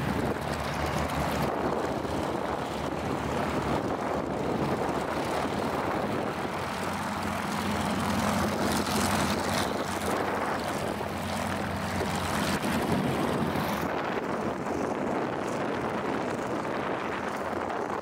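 Nine-cylinder Pratt & Whitney R-1340 radial engines of North American T-6 Texan trainers running at taxi power as the planes roll past one after another, a steady propeller-driven engine sound that swells as one passes closest.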